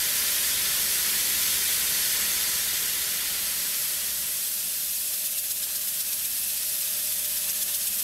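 Steady hiss of a 14,000 psi high-pressure water jet blasting mill scale and debris out of the inside of steel pipes, dropping a little in level about halfway through.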